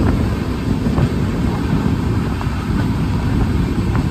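Passenger train coach running at speed: a steady loud rumble of wheels on the track, with a few faint clicks.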